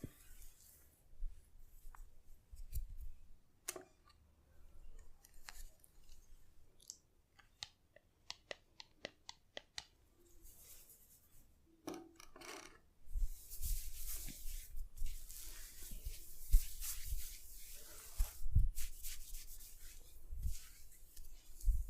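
Close, crisp rustling of hair being rubbed and worked against the scalp during a head massage. A quick run of sharp clicks, about four a second, comes near the middle. It gives way to dense, continuous rustling with soft thumps in the second half.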